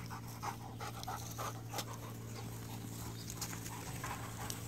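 Bouvier des Flandres panting from running, quick even breaths about two to three a second.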